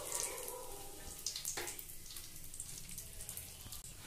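Cumin seeds and bay leaves sizzling gently in hot oil, with a faint, scattered crackle, as the tempering for a curry fries just after asafoetida has gone in.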